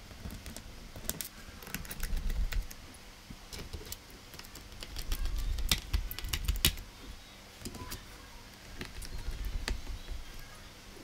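Laptop bottom-cover screws being handled and driven back in with a screwdriver: scattered light metallic clicks and rattles, with a few dull bumps from the laptop being handled.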